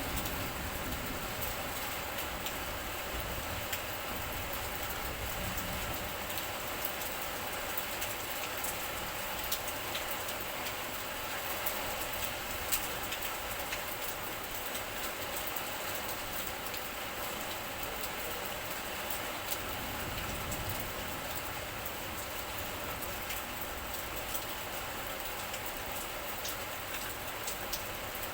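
Steady rain falling, with scattered drops ticking sharply close by and a low, uneven rumble underneath.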